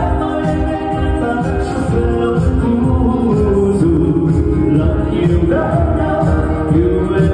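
Live band playing with a singer during a sound check, the voice held in long bending notes over the full band.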